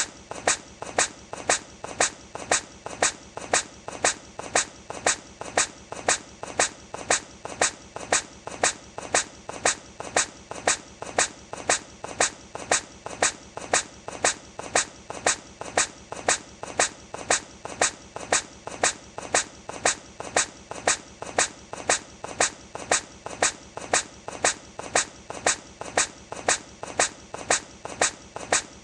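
A hedgehog's short sneeze, looped to repeat evenly about three times every two seconds.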